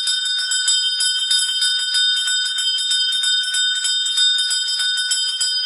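Ice-cream cart's handbell rung rapidly and continuously, a bright metallic ringing of quick repeated strikes.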